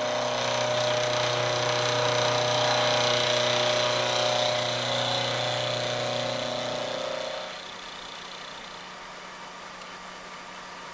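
Vertical milling machine cutting a flat on a shaft held in a dividing head: a steady motor hum with a hiss of cutting on top. About seven and a half seconds in, the cut ends and the louder sound stops, leaving the machine running with a quieter hum.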